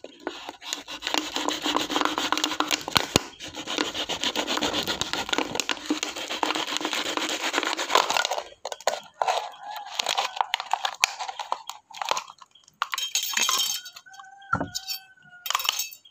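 Kitchen knife sawing and tearing through a thin metal drink can: a dense scraping crackle for about the first eight seconds, then sparser clicks and crinkles as the cut can is worked apart.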